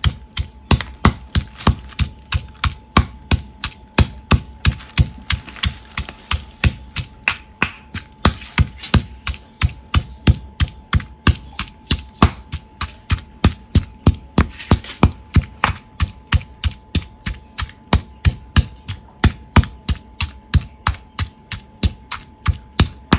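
Stone pestle pounding in a granite mortar, crushing chillies, garlic, anchovies and belacan into a wet sambal paste: a steady run of sharp strikes, about three a second.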